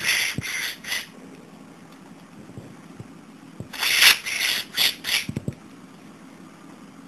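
Budgerigar making short, hissy, rasping noises: three quick bursts at the start, then a louder run of about five more about four seconds in.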